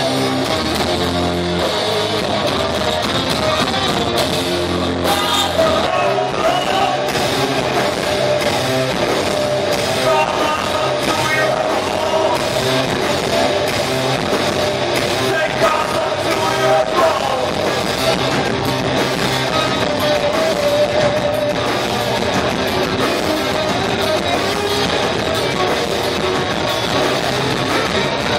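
A live heavy rock band playing loud: distorted electric guitars and a drum kit, heard from within the crowd.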